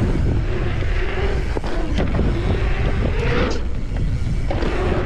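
Mountain bike's knobby tyres humming on a paved track, a hum that wavers in pitch, over heavy wind rumble on the microphone, with a few sharp clicks.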